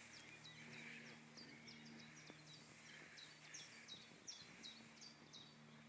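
Faint bird chirps, each a quick downward slur, repeated several times a second over a low steady hum.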